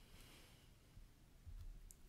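Near silence: room tone, with a faint low bump and a small click near the end.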